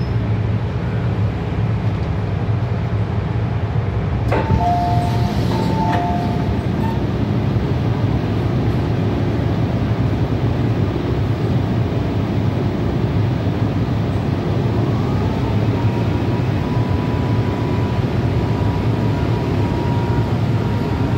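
Steady low running rumble heard inside an MTR M-Train car on the move. About four seconds in, a short two-note electronic tone sounds twice. From about fifteen seconds a whine rises and then holds steady.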